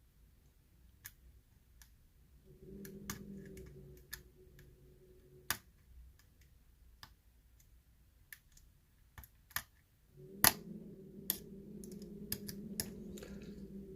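Lock pick and tension wrench working the pins of a pin-tumbler challenge lock: irregular small metallic clicks and taps as the pins are pressed and set, one louder click near the end. A low steady hum is heard twice, a few seconds each.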